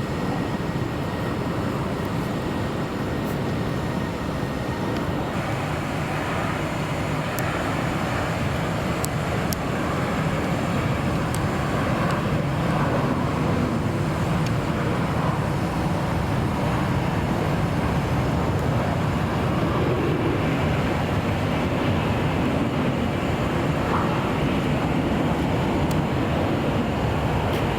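Jet airliner engine noise: a steady low rumble that swells a little after about ten seconds, over the wash of road traffic.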